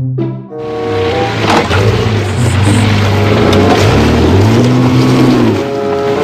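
A motor vehicle engine running and revving, its pitch rising and falling. Music plays briefly at the start and again near the end.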